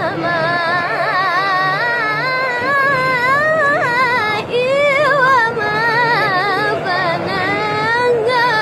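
A boy chanting Qur'an verses in melodic recitation, his high voice holding long, wavering, ornamented notes, with a short pause for breath about four and a half seconds in.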